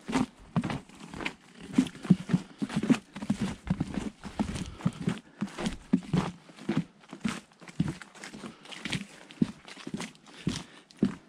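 Boots crunching through fresh snow on a wooden plank boardwalk, a steady run of footsteps at walking pace.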